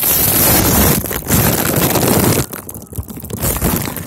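Loud crinkling and rustling of a foil helium balloon rubbing against the microphone as helium is sucked out of it, with a short lull a little before three seconds in.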